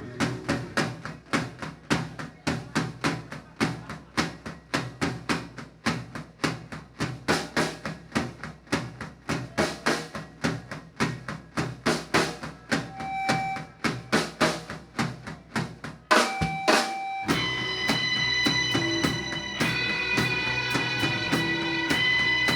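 Live rock band opening a song: a drum kit plays a steady, driving beat of about three hits a second. After a brief break about sixteen seconds in, the full band comes in with sustained guitar and keyboard chords over the drums.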